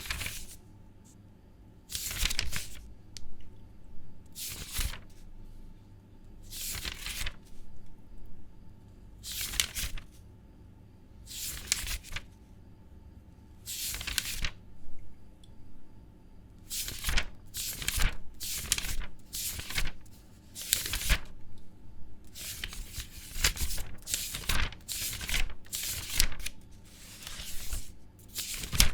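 Paper pages being turned one at a time, each turn a short rustling swish. The turns come every two to three seconds at first, then faster and closer together through the second half.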